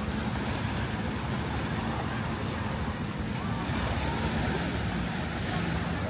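Surf washing onto a sandy beach in a steady, continuous rush, with a low steady hum underneath.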